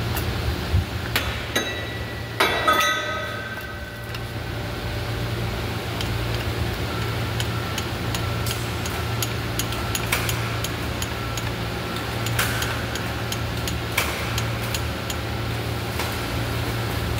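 Metal clanking as transmission jacks and tools are handled: one ringing metal clang about two and a half seconds in, then scattered light clicks and taps, over a steady low hum.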